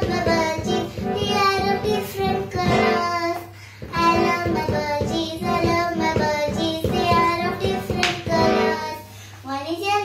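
A young girl reciting a poem in a sing-song voice, line by line, with short pauses between the lines.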